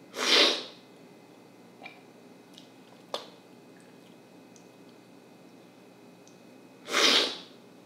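Two loud slurps of coffee off a cupping spoon, each about half a second long, one right at the start and one near the end, drawing the coffee in with air to spray it across the palate for tasting. A few faint clicks fall in between.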